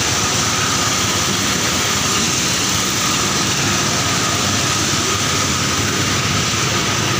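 Engine-driven corn milling machine running steadily: a constant loud mechanical din with a steady high whine through it.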